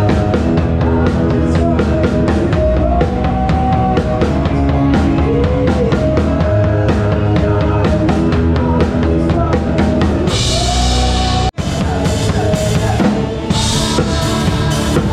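Live band music heard close to the drum kit: a steady kick-and-snare beat under bass and melodic lines. Cymbals crash about ten seconds in, the whole band stops dead for a split second at about eleven and a half seconds, and the cymbals crash again near the end.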